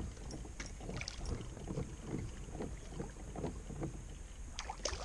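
A hooked bass thrashing at the surface beside a kayak: irregular short splashes and water sloshing, a few sharper splashes near the end.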